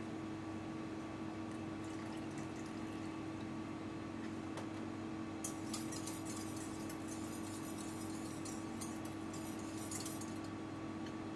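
Water poured from a small stainless steel jug into espresso in a steel bowl, then a wire whisk stirring the liquid, splashing and ticking against the bowl from about halfway through until near the end. A steady hum runs underneath.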